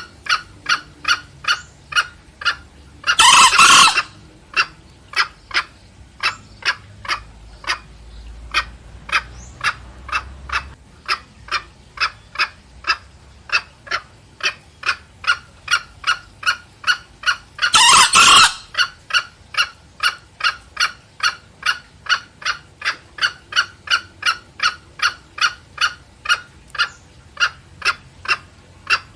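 Green junglefowl cock and hen calling back and forth. A steady run of short clucking calls, about two or three a second, is broken twice by a brief, hoarse crow from the cock: a few seconds in and again about two-thirds of the way through.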